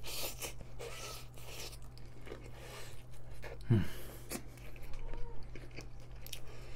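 Close-miked chewing of a mouthful of kimchi fried rice, with many small wet mouth clicks. About four seconds in there is a short hummed 'mm' that falls in pitch. A faint steady low hum runs underneath.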